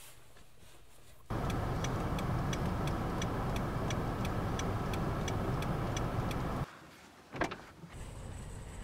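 Inside a Toyota car's cabin: steady engine and road noise with a turn signal clicking about twice a second, starting suddenly after quiet room tone about a second in and cutting off suddenly near the end.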